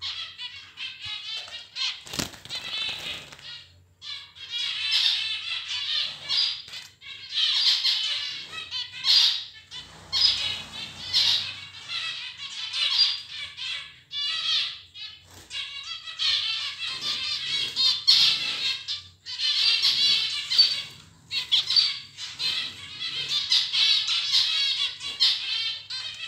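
A cage of white zebra finches chattering and calling in rapid, high-pitched notes almost without pause, with wing flutters as they scuffle and fly about. A single sharp knock about two seconds in.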